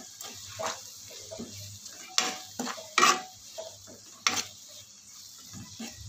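Steel spoon scraping and knocking against a metal kadhai in a run of strokes while stirring onion, garlic and spice powders frying in oil, over a faint sizzle.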